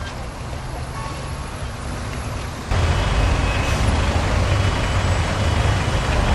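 Steady low rumble of motor vehicles, with noise spread up through the higher pitches. Under three seconds in it jumps suddenly louder and stays at that level.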